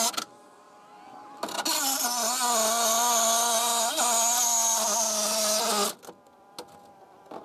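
Cordless reciprocating saw cutting through a rusted steel trailer-frame member. It gives a brief burst at the start, then after a short pause runs steadily for about four seconds with a constant whine, and stops suddenly near the end.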